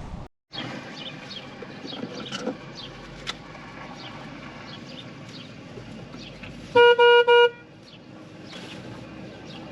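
Car horn honking three short quick toots in a row, about seven seconds in, over a steady outdoor background.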